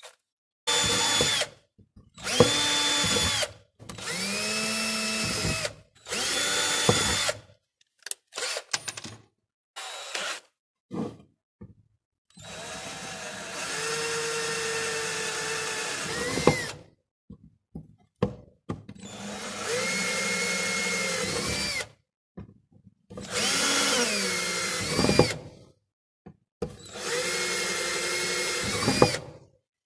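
Handheld electric drill boring a hole, starting with a thin bit, through a white plastic vending-machine base plate. It runs in a series of bursts of one to four seconds, the motor whine rising as the trigger is squeezed and falling away as it is released.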